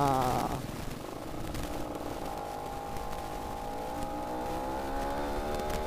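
Yamaha F1ZR's two-stroke single-cylinder engine pulling steadily, its pitch rising slowly as the bike picks up speed, over wind rush on the microphone.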